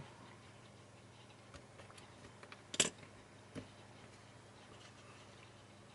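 A few light clicks and taps from handling a Core 2 Duo processor and motherboard parts as the chip is set back into its socket. The sharpest click comes nearly three seconds in and a smaller one follows under a second later.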